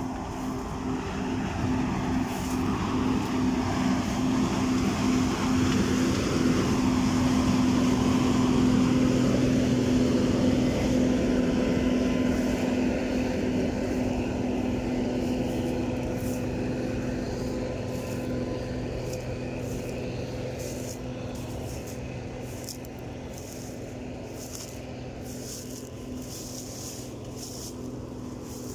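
Combine harvester running while it cuts standing corn: a steady engine hum that swells over the first several seconds and then slowly fades as the machine moves away.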